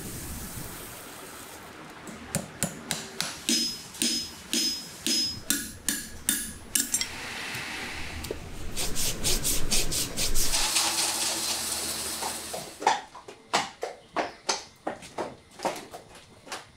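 A sequence of farrier's sounds. First the hiss of a hot steel horseshoe seared onto the hoof. Then a run of ringing hammer strikes on the shoe, a metal rasp scraping across the hoof, and near the end a steady run of knocks as the horse's shod hooves step on the stall floor.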